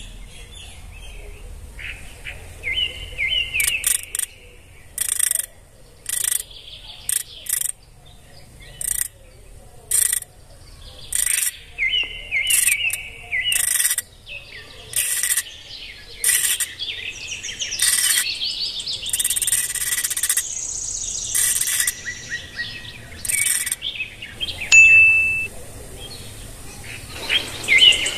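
Birds chirping: short, high calls repeated about once a second, with a few warbling phrases between them.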